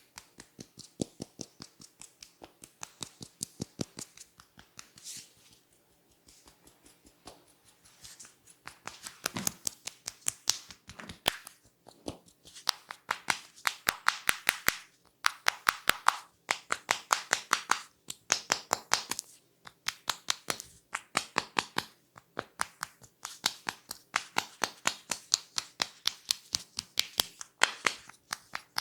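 Barber's scissors snipping rapidly and rhythmically, a few sharp snips a second, dropping back briefly about five seconds in and then growing louder and faster from about twelve seconds in.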